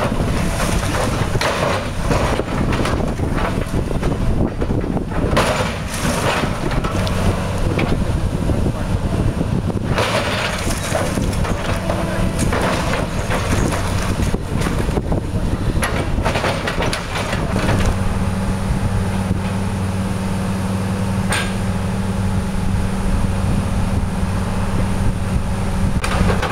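Tracked hydraulic excavator's diesel engine running while its bucket works at a concrete slab, with repeated knocks and crunches of the bucket on the concrete. The engine settles into a steady, even hum in the later part.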